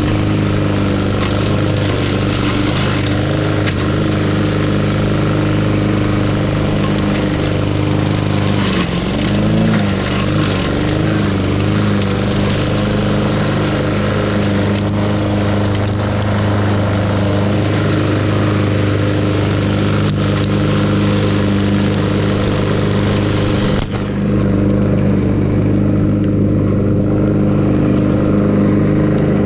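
An engine running steadily at an even speed. About twenty-four seconds in, the higher hiss drops away sharply while the engine's hum carries on.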